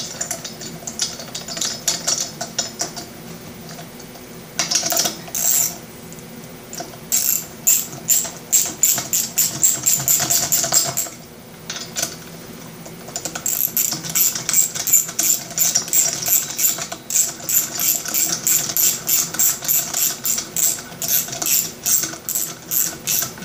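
Steering-wheel puller bolts being run down into the tapped puller holes of a Briggs & Stratton engine's flywheel: runs of light metallic clicks, about three a second, with a short pause about eleven seconds in.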